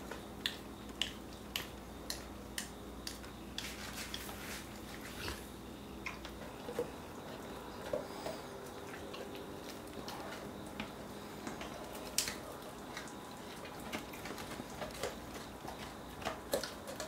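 Cane Corso gnawing a giant knotted milk chew bone: irregular sharp crunching clicks of teeth on the hard chew, about one or two a second.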